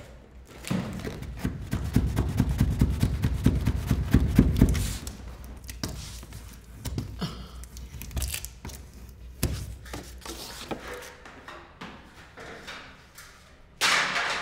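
Low knocking and thumping handling sounds for a few seconds, then scattered lighter knocks. Near the end comes a sudden loud clatter as an aluminium stepladder is handled.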